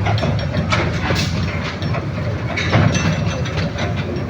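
Small park toy train running on its track: a steady low rumble with irregular clicks and clacks from the wheels on the rails.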